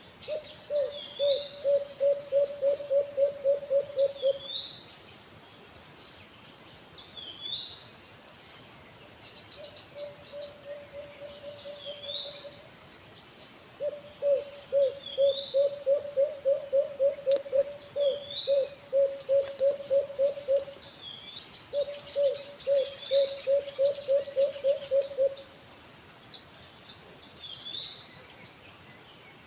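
An alimukon dove calling in rapid runs of low, even coos, about four a second, each run lasting a few seconds and recurring several times. Behind it runs a steady high insect drone, with short high chirps repeating throughout.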